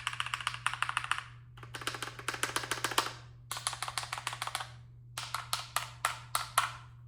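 Fast typing on a Keychron K2 V2 wireless mechanical keyboard: rapid keystroke clicks in four bursts of about a second and a half each, with short pauses between.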